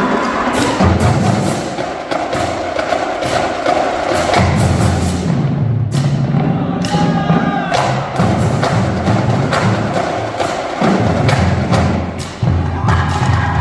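Marching drumline playing: a dense stream of fast drum strokes over low pitched drum notes that step up and down.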